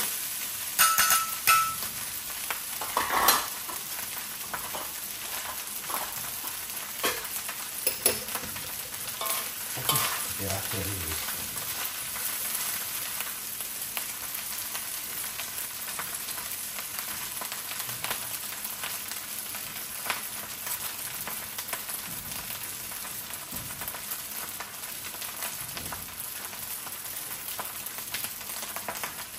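Fried rice sizzling steadily in a hot pan as it is stir-fried. Scraping and knocking of the stirring utensil against the pan comes often in the first dozen seconds, then only now and then.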